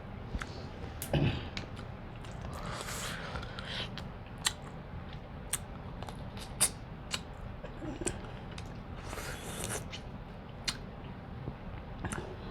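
Close-up eating sounds from a seafood boil: scattered sharp clicks and smacks of chewing and handling food, with two longer hissing sounds, one a few seconds in and one near the end.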